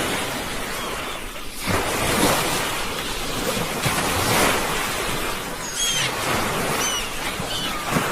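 Sea waves breaking and washing ashore, surging about two seconds in and again about four seconds in. A few short high chirps come near the end.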